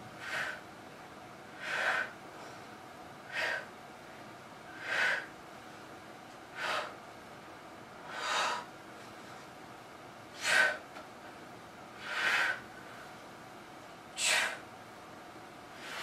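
A woman breathing hard under exertion during dumbbell chest presses: nine short, forceful exhales, one about every 1.5 to 2 seconds, in time with the pressing.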